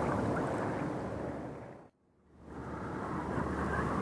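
Steady rushing noise of wind and river water. It fades out just before two seconds in to a brief dead gap, then comes back.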